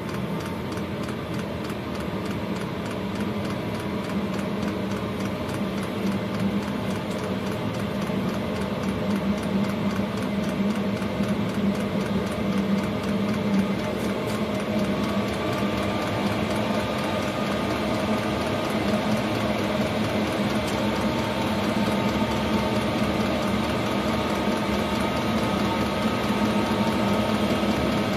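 Chinese 5 kW 12-volt diesel air heater running just after its first start: a steady whirring hum with a fine, rapid mechanical rattle, slowly getting louder. It is in the noisy warm-up phase while it builds up heat.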